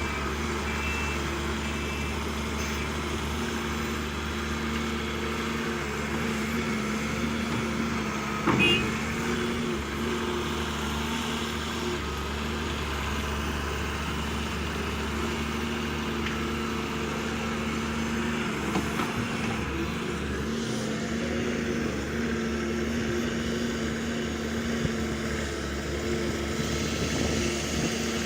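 Excavator's diesel engine running steadily under work, with one loud metallic clank about eight and a half seconds in.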